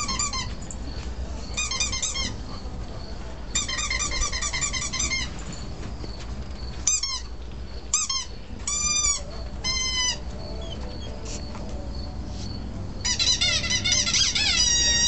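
Squeaky-toy-style squeaks played through a cell phone's speaker: quick runs of short, high squeaks, a few single squeaks in the middle, then a dense flurry of overlapping falling squeaks near the end.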